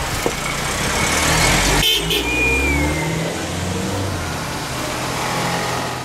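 Cars and a pickup truck driving past close by on a paved street, engines running with tyre and road noise. A brief thin high tone falls in pitch about two seconds in.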